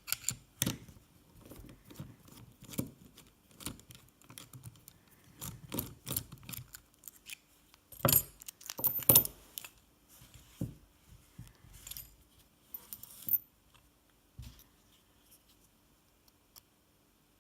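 Lock picks working in the keyway of an anodized KASP 14040 pin-tumbler padlock: a run of small metallic clicks and clinks, loudest in a cluster about eight to nine seconds in, going mostly quiet for the last few seconds.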